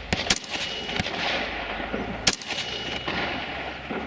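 Rifle gunfire: about four sharp shots, irregularly spaced, the loudest a little over two seconds in.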